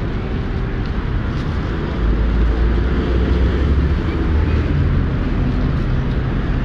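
City street traffic: a steady low rumble of vehicle engines and tyres, growing heavier about two seconds in as a large vehicle passes close by.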